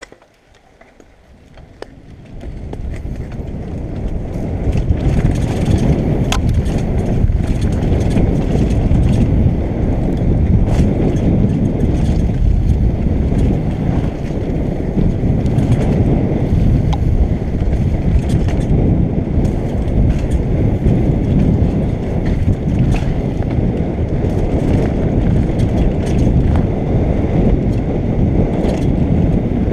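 Downhill mountain bike running fast over a dirt trail, heard from a helmet-mounted camera: a dense rumble of wind on the microphone and tyres on dirt, with many scattered clicks and knocks from the bike rattling over bumps. It starts quiet and builds over the first few seconds as the bike picks up speed.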